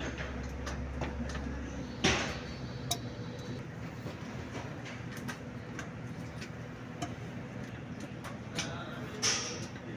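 Irregular clicks and knocks from gear oil being pumped through a hose into a Mercedes-Benz Actros gearbox, roughly once a second. Two louder clanks come about two seconds in and near the end, and a low hum stops about two seconds in.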